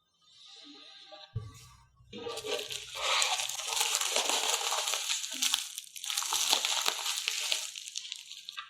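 Packaging being handled, crinkling and crackling in two long stretches, after a soft thump about a second and a half in.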